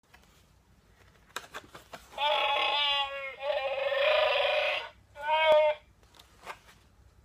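Clicks and handling of a greeting card being opened, then a recorded Chewbacca (Wookiee) roar from a musical sound card's small speaker: one long growling call lasting nearly three seconds, then a shorter one about five seconds in.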